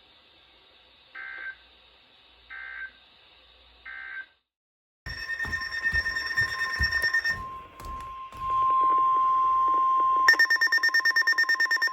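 NOAA Weather Radio alert signalling: three short electronic data chirps about a second and a half apart, the end-of-message code closing the previous warning. After a brief silence, louder electronic alarm tones begin, with a steady high alert tone and then a fast-pulsing beep near the end, sounding ahead of a new warning.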